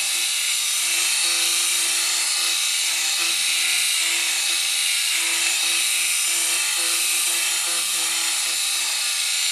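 Braun Silk-épil 9 Flex epilator running steadily with its tweezer head against the face, plucking facial hair: a constant high-pitched whir with a low hum underneath that comes and goes.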